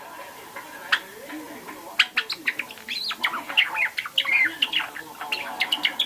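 Young white Java sparrow practising its song: subsong, the rambling first attempts of a juvenile at about two and a half months old. One click about a second in, then from about two seconds a quick jumble of clicks and short warbled notes.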